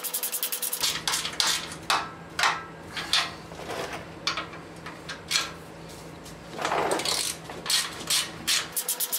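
Metal hand tools clinking and tapping on the steering rack mounting bracket hardware as its nuts are tightened. A ratchet clicks at an even, fast rate briefly at the start and again just before the end, with irregular clinks and a scrape in between.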